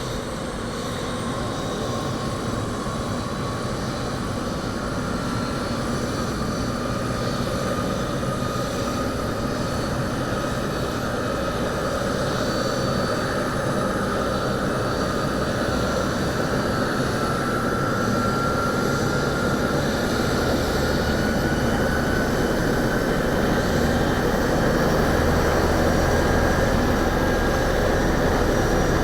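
Bell 206B III police helicopter's turbine engine and rotor running continuously, with a thin whine that slowly climbs in pitch as the overall sound gradually grows louder.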